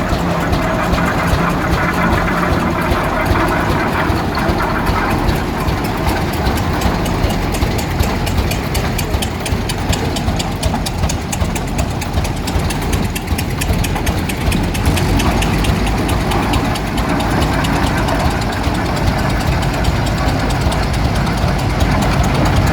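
Tractor engine running steadily, with a fast, even firing beat.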